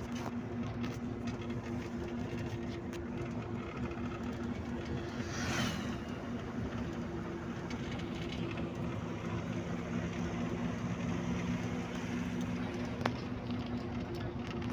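Steady drone of a bus on the move, heard from inside the cabin: engine hum with road and wind noise, and a brief whoosh about five and a half seconds in.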